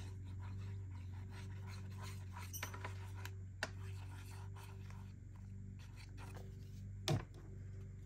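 Faint handling of paper pieces being placed and pressed onto a journal page: a few light rustles and clicks, with a slightly louder tap about seven seconds in, over a steady low hum.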